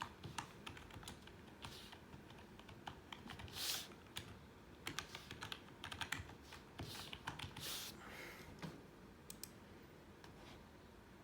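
Typing on a computer keyboard: faint, irregular key taps and clicks, busiest in the middle and thinning out near the end.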